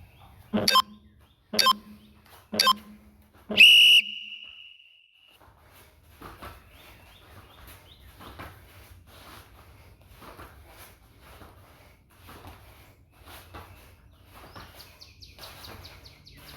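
Workout interval timer counting down: three short beeps a second apart, then a longer, louder beep whose high tone trails off, marking the start of a Tabata round. Faint rhythmic sounds follow about twice a second.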